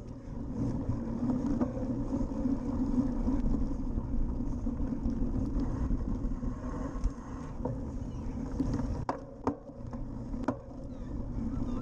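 Steady rumble of a cyclocross bike being ridden over sand and grass, picked up by a bike-mounted action camera: tyre noise on the dirt mixed with wind on the microphone. Several sharp clicks and knocks from the bike near the end.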